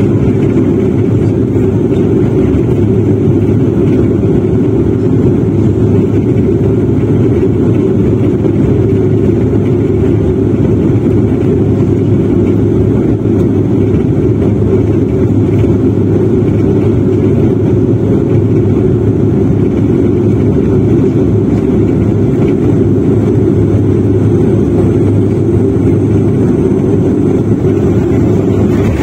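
Cabin noise of a De Havilland Q400 turboprop on final approach: the loud, steady low drone of its two turboprop engines and propellers heard through the fuselage, with a constant low hum underneath. It stays even throughout, with no touchdown bump.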